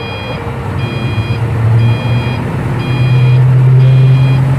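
Hino 500 FM 260 JD dump truck's diesel engine running under load, driving the PTO hydraulic pump that raises the dump body, and getting louder about three seconds in. A warning beeper sounds over it, about one beep a second.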